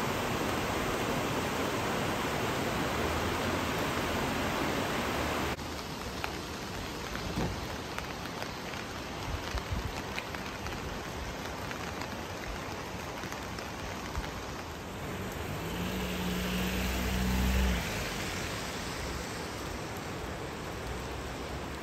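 Steady rain falling, with scattered small drips and taps. A low hum swells near the end and cuts off suddenly.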